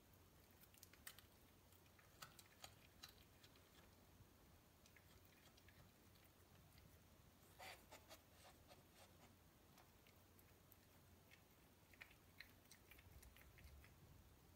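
Domestic cat eating a mouse it has caught: faint chewing and crunching, as scattered soft clicks with a short louder cluster a little past halfway.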